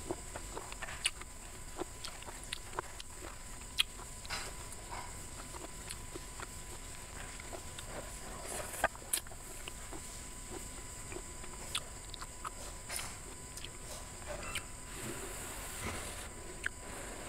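Close-miked eating sounds: a woman chewing and smacking mouthfuls of a shredded green papaya dish, with many short, sharp mouth clicks scattered throughout.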